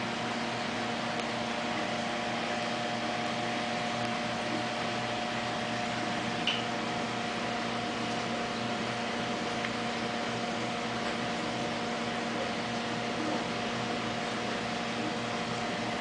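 Steady hum of a large aquarium's pumps and filtration: a constant mechanical drone with a steady hiss. There is one faint click about six and a half seconds in.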